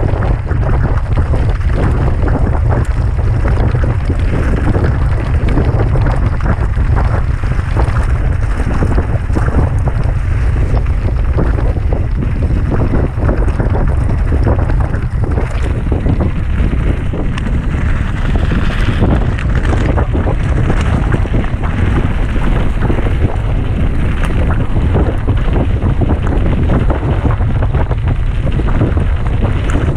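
Loud, steady wind buffeting the microphone of a camera carried on a mountain bike at speed. Under it runs a continuous clatter of rattles and knocks as the bike runs down a rough trail.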